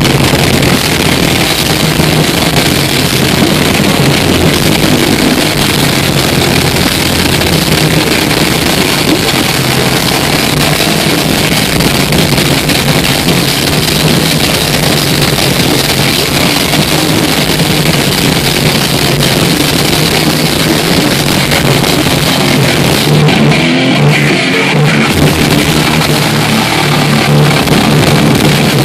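Loud live death metal from a full band: distorted electric guitars, bass and drum kit playing without a break. The bass and cymbals drop away for about a second roughly four seconds before the end, then come back.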